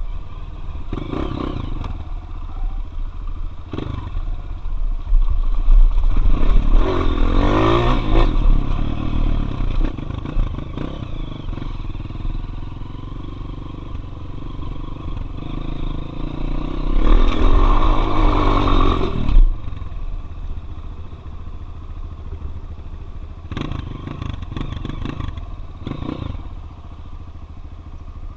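Single-cylinder four-stroke trail motorcycle riding along a dirt road, engine running steadily, with two louder stretches of acceleration: one about five seconds in and another around seventeen seconds in.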